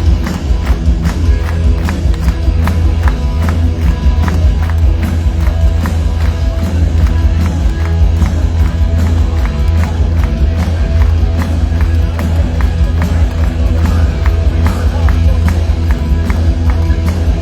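Punk rock band playing live through a loud PA, heard from within the audience: heavy, booming bass and steady pounding drums, with crowd noise mixed in.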